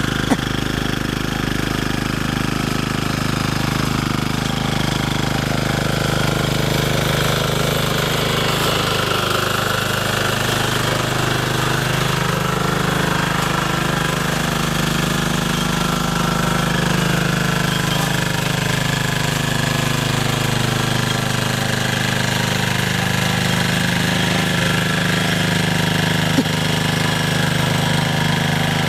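Diesel power weeder (MY-673D) running under load, its small single-cylinder diesel engine chugging steadily as the rotary tines churn through soil. The engine note shifts slightly in pitch about a third of the way in.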